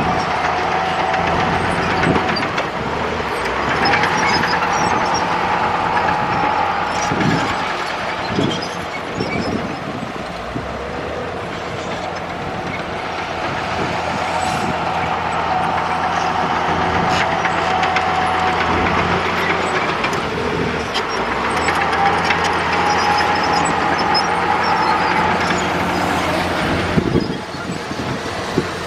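Komatsu D65E bulldozer's diesel engine running steadily under load, with a high tone coming and going above it and a few knocks about seven to nine seconds in.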